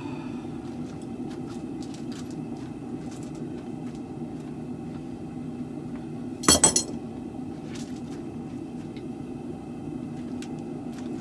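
Steady low roar of a blacksmith's forge, with a brief sharp metallic clatter of two or three ringing hits a little past the middle and a few faint clicks.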